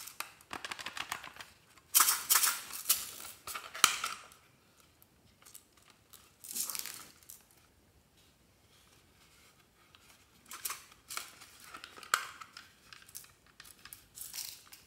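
A hard plastic toy case being handled, with bursts of crackling, rattling and sharp clicks, loudest about two to four seconds in and again near the end.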